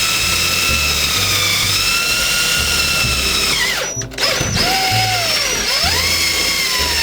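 Electric drill running, its bit boring out the rest of the center-pin hole in an aluminum fishing-reel handle. The motor whine sags in pitch under load, stops briefly about four seconds in, then spins up again.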